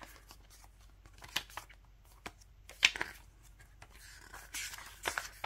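Pages of a small glossy CD photo booklet flipped through by hand: soft, scattered paper rustles and flicks, with one sharper flick about three seconds in.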